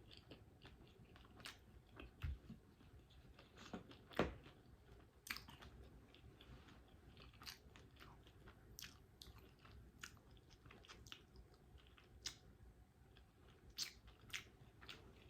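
A person chewing a smoked sausage close to the microphone: quiet, wet mouth clicks and smacks about once a second, the sharpest about four seconds in.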